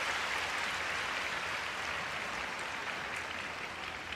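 Arena audience applauding, a dense steady clapping that slowly dies down.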